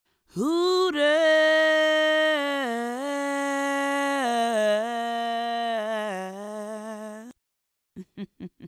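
A ring announcer's voice drawing out one long held syllable, about seven seconds long, its pitch stepping slowly down, followed by four short faint blips near the end.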